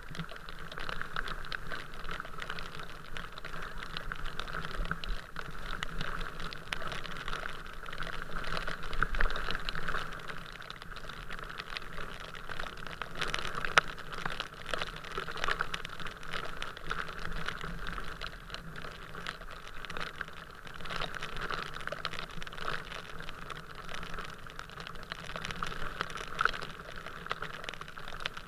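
Rain pattering on the camera's housing: a dense, irregular clicking of drops over a steady hiss.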